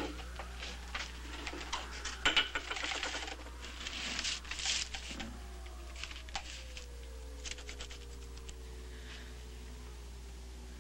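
Faint music score with held tones that slowly fall in pitch, over a steady low hum, with scattered clicks and rustles in the first half.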